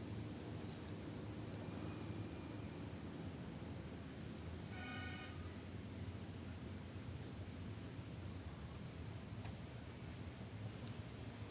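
Outdoor ambience by a creek: insects chirping over a steady low rumble, with a short, high pitched call about five seconds in.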